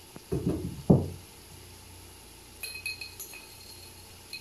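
Two dull thumps about half a second apart near the start, then a run of light ringing clinks from a metal teaspoon knocking against a spice container while a spice is scooped out.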